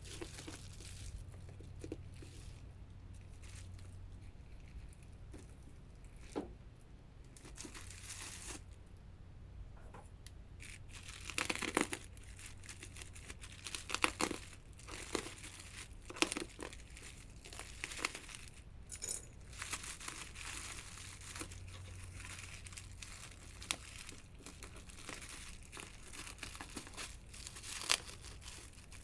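Packaging being handled and opened: crinkling and tearing of wrapping, with scattered sharp clicks and knocks, over a low steady hum.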